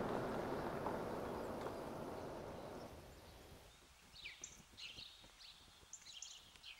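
A car driving away, its engine and tyre noise fading out over the first three seconds. Then birds chirping in short high calls.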